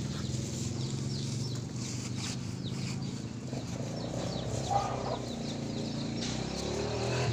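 Chickens clucking, with one louder call about five seconds in, over a steady low hum.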